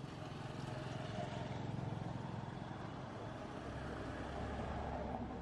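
Low, steady engine hum of a motor vehicle running in the background, dropping to a deeper tone a little past halfway.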